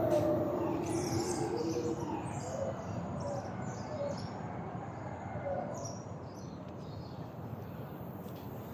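Distant howler monkeys' low, drawn-out roaring fades out over the first couple of seconds. Short high chirping calls repeat over the next several seconds.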